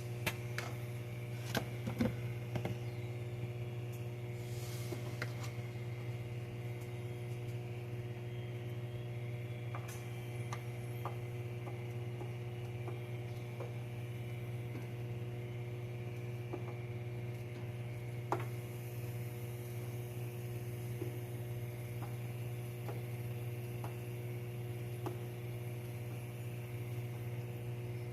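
Steady low electrical hum with a few faint fixed tones above it. Scattered light clicks and knocks sound over it, a few louder ones in the first couple of seconds and one more later on.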